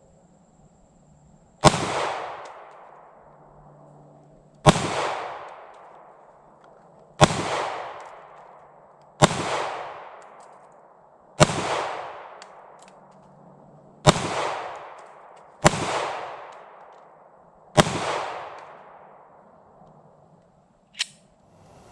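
Glock 43 9mm subcompact pistol fired eight times in slow, deliberate fire, about two to three seconds between shots, each report trailing off over a second or so. A faint click follows near the end.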